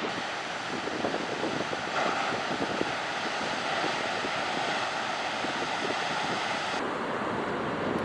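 Steady noise of wind and ocean surf, with wind buffeting the microphone. The sound changes abruptly twice, about two seconds in and again near the end.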